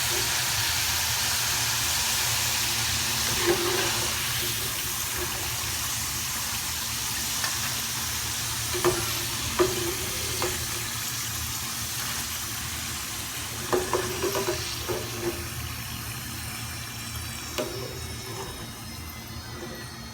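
Potato fries deep-frying in hot oil, a steady sizzle that slowly dies down, with a few light knocks of a cooking utensil against the pan.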